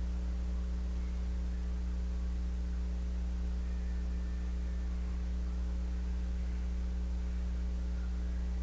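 A steady low hum with several fainter steady tones above it, unchanging throughout.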